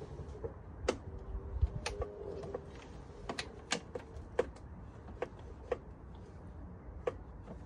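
About nine sharp, irregularly spaced metallic clicks and knocks as a Suzuki RM85 dirt bike is handled before a cold start. The engine is not running.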